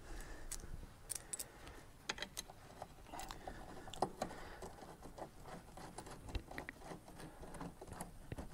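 Faint, irregular small clicks and rustles of hand work as a car seat's mounting bolt is started by hand, with a sharper click about four seconds in.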